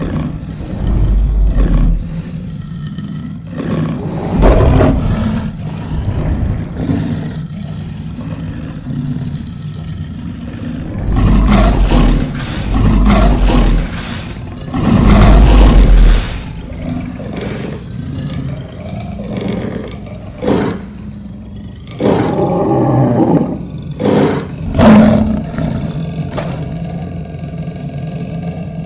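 Monster roar sound effect: a series of deep, loud roars in separate bursts, the longest and loudest from about 11 to 16 seconds in, over a steady low hum.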